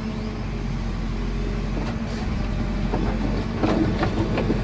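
JCB 4CX backhoe loader's diesel engine running steadily, with a few short knocks about three to four seconds in.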